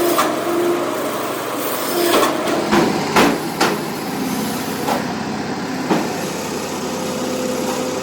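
An engine-driven machine running steadily, with several sharp knocks scattered through, about seven in all.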